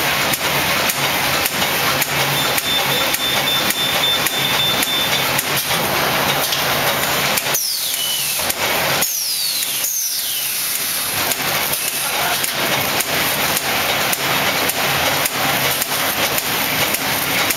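Automatic cold-cut T-shirt bag making machine running: a steady mechanical clatter with regular rapid clicks as it cycles. About eight and ten seconds in, two high whistles fall in pitch.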